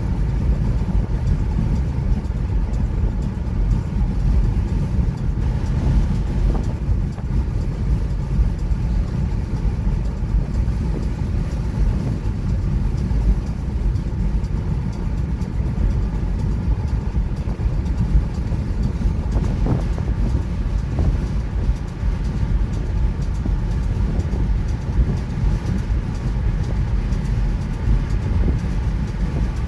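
Steady low rumble of road noise from a car cruising at highway speed, heard from inside the cabin.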